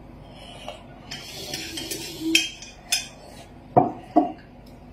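Tableware clattering at a meal: utensils scraping and clinking against dishes, with two louder knocks near the end.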